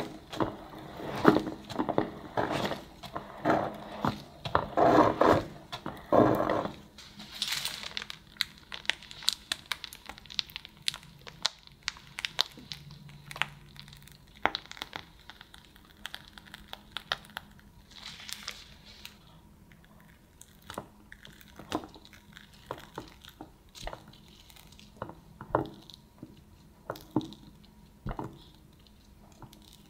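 Stainless steel cake scraper drawn around the cream-coated side of a sponge cake, making a run of close, rubbing scrape strokes for the first six seconds or so. After that come quieter soft squishes and scattered light clicks and taps as cream is piped onto the top layer and spread with a metal spatula.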